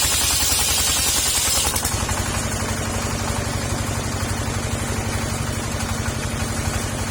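Petrol engine driving a circular saw, with a steady low pulsing hum. The blade's high hiss through sengon wood stops about two seconds in, and the saw then runs unloaded for the rest.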